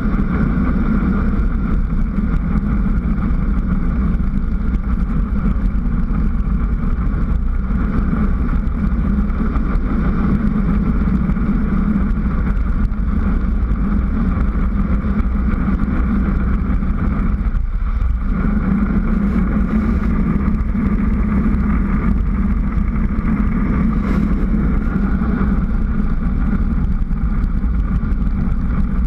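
Steady rush of wind over the GoPro's microphone, mixed with tyre noise on asphalt, from a mountain bike rolling fast downhill.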